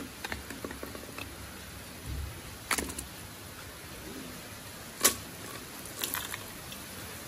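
Handling noise of a Canik TP9 pistol and its magazine on a wooden table: a series of separate metal clicks and knocks, the sharpest about five seconds in, then a brief clatter about six seconds in as 9mm cartridges are dropped onto the table. No shots are fired.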